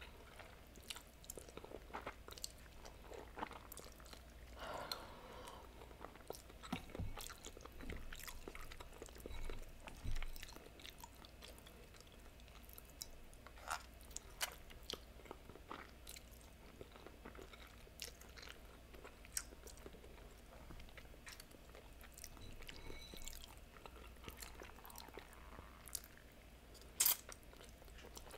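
Quiet noodle eating: soft slurps of noodles and chewing, with scattered small clicks. A sharp click about a second before the end is the loudest sound.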